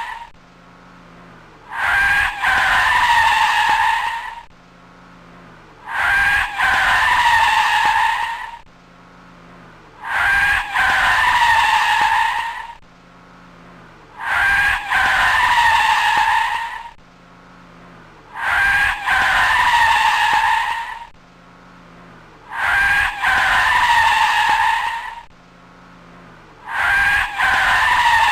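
A looped car sound effect. A loud, high, wavering tone with overtones lasts about two and a half seconds and repeats roughly every four seconds, seven times, with a lower engine note in the quieter gaps between.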